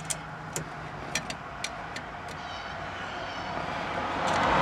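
A few light, sharp clicks and taps of parts being handled at the steering column, while a passing vehicle grows steadily louder toward the end.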